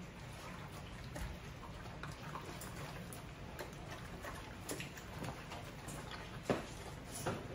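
Puppies eating dampened dry kibble from a metal bowl: irregular small crunches and clicks of food and bowl, with a sharper clink about six and a half seconds in.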